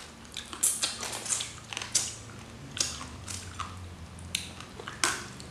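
Raw rice-field crab shells crunching and cracking as they are bitten and chewed, with wet chewing between sharp crunches that come about every half second to a second.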